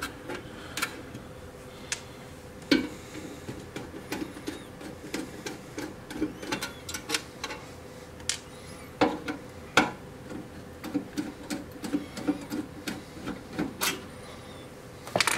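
Small screws being backed out of a metal front panel with a screwdriver: irregular light metallic clicks and ticks as the driver turns and the screws are lifted out and set down on the workbench.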